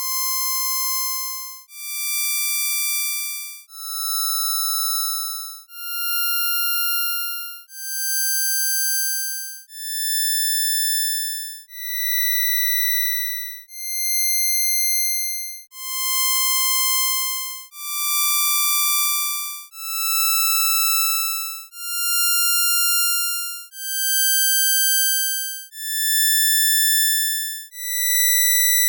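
Synthesized impulse-train tones from Csound's buzz opcode, played as a rising sequence of notes about two seconds each that swell in and fade out, each rich in evenly spaced overtones. The first run is passed through a comb filter. About sixteen seconds in, the sequence starts again from the bottom as the unfiltered impulse train, with a brief burst of clicks at its start.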